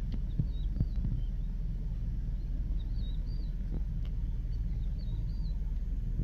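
Steady low rumble with small birds chirping in short, high notes scattered through it.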